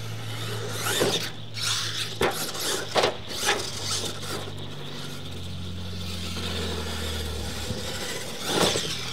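Large electric RC monster truck running on dirt: a motor whine that shifts in pitch and tyres scrabbling on dirt, with several sharp knocks, about one, two and three seconds in and again near the end.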